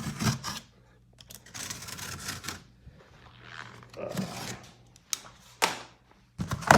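Cardboard shipping box being opened by hand: scattered clicks, knocks and short scraping, rustling bursts of cardboard and packing, with brief quiet gaps between them.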